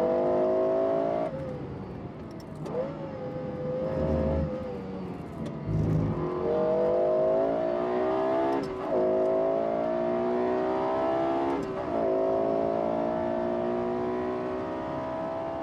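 Lexus LFA's 4.8-litre V10 accelerating hard through the gears. The pitch climbs in each gear and drops sharply at each of several quick upshifts.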